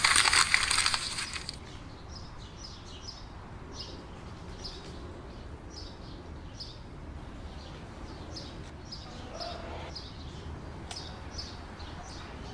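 A clear plastic bag crinkling loudly in the hands for about a second and a half at the start, then small birds chirping repeatedly in the background.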